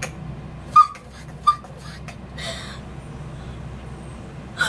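A woman's short, high-pitched stifled squeals of excitement, twice in the first couple of seconds, then a fainter breathy one, over a low steady hum.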